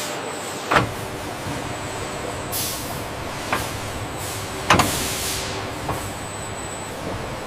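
Factory machinery running steadily, with several sharp clanks and two hisses of released air, the first about two and a half seconds in and the second, together with the loudest clank, near the middle.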